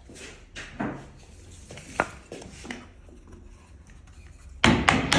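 Light scattered knocks and taps of wood-working, with a sharp click about two seconds in, then a quick run of louder knocks, about five a second, near the end.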